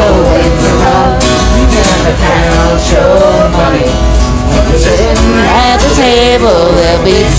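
A man singing a country song while strumming a steel-string acoustic guitar, played live.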